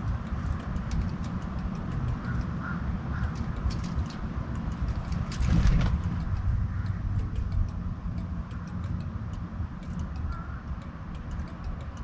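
Outdoor ambience under a low steady rumble, with scattered light clicks and a few short bird calls, three in the first few seconds and one more near the end. A louder rush of noise comes about five and a half seconds in.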